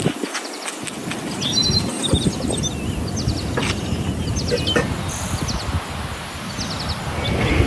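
Birds chirping in short, rapid trills over a steady low rumble of outdoor noise, with a few scattered clicks.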